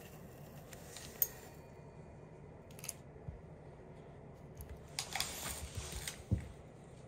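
Quiet room with a few faint isolated clicks and taps, the sharpest about a second in, and a short spell of soft rustling about five seconds in.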